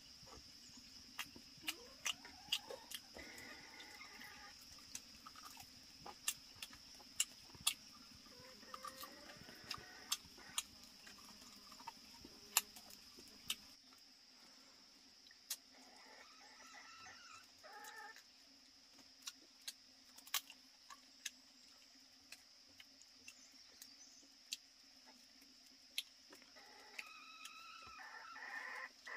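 A steady high insect drone, with many sharp clicks and taps scattered through it and a few short animal calls, clucking-like, coming and going.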